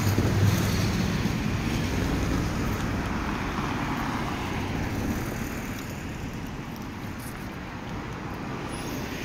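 Cars passing on a street: steady road-traffic noise with tyres and engines, swelling as a car goes by about four seconds in, then slowly easing off.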